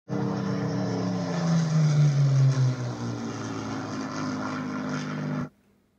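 Propeller aircraft engine droning steadily, swelling louder about two seconds in and easing off, then cutting off abruptly just before the end.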